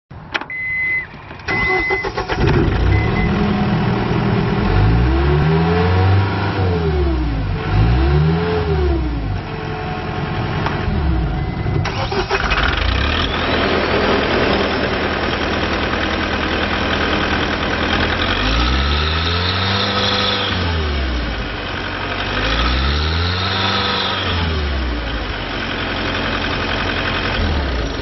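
Diesel engine of a John Deere 323D compact track loader being started after a short beep, then idling. It is revved up and back down twice, and twice more later on.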